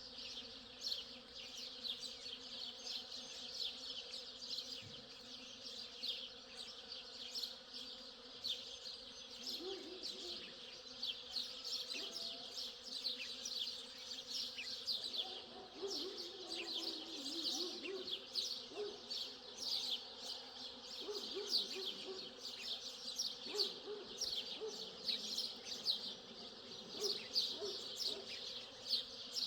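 Outdoor nature ambience: a dense, continuous chorus of rapid high-pitched chirps, with faint low sounds in the middle.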